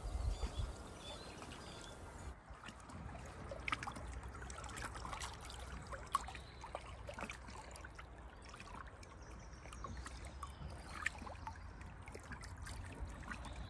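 Small waves lapping and splashing irregularly against the lake shore, over a low rumble.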